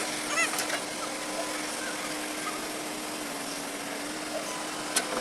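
Excavator's diesel engine running steadily, with a brief voice near the start and a couple of sharp clicks.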